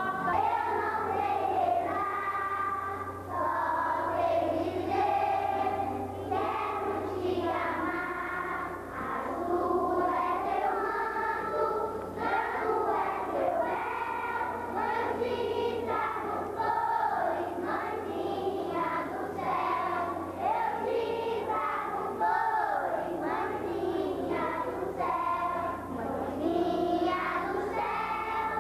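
A group of children singing together in chorus, a slow devotional hymn carried on without a break.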